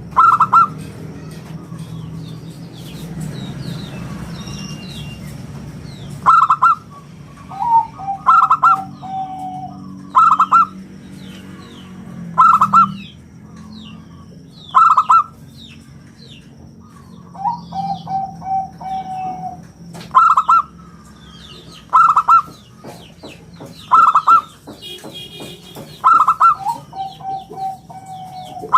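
Local zebra dove (perkutut) cooing in full song: loud round coo notes about every two seconds, three times running into a quick string of lower rolling notes. Small birds chirp faintly behind it.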